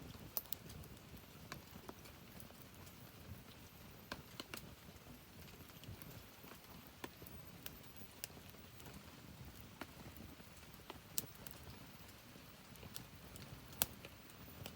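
Wood fire crackling: irregular sharp pops and snaps over a faint low rumble, with one louder pop near the end.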